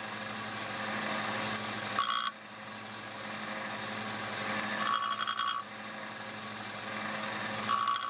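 WEN 1x30 belt and disc sander running, its sanding disc grinding the steel tip of a pocketknife's screwdriver blade square. A steady motor hum and grinding noise, with three short higher-pitched bursts: about two seconds in, around five seconds in, and near the end.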